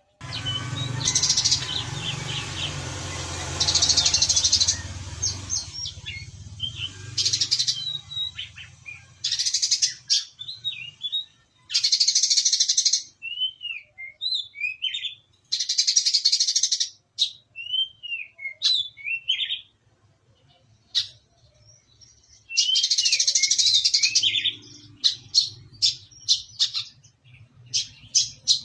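Brown-throated sunbird (kolibri kelapa) singing. Dense, very high rapid trills about a second long are repeated, alternating with short sparrow-like chirps. A low hum sits under the first few seconds.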